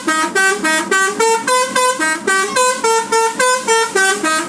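Bus telolet horn, an electric multi-tone musical horn, playing a fast run of short notes, about four a second, stepping up and down in pitch without a break: the telolet button has short-circuited, so the horn keeps on playing.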